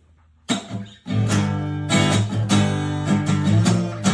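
Guitar strummed in chords without singing. It starts after a brief pause, with one chord about half a second in, then settles into steady strumming from about a second in.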